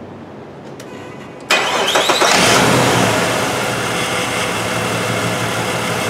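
2005 Jeep Liberty's 3.7-litre V6 cranked over about a second and a half in, catching almost at once and settling to a steady idle. It is misfiring on cylinders 4 and 6, whose ignition coils have shorted secondary windings.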